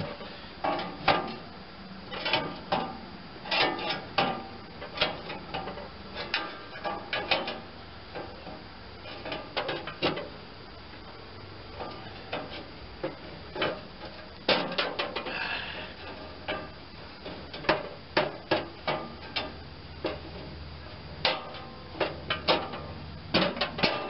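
A wrench clinks and knocks against the steel spiral flight of a snowblower auger as the bent flute is levered back into shape. The metal clanks come irregularly, sometimes in quick runs of several.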